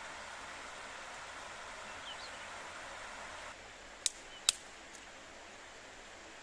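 A shallow stream rippling over stones, then two sharp snaps of dry twigs about half a second apart.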